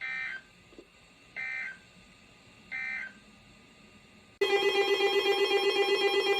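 Three short bursts of EAS (SAME) digital data tones, the end-of-message code that closes a weather warning broadcast, about 1.4 s apart. About four seconds in, a much louder, rapidly pulsing alert tone starts and keeps going.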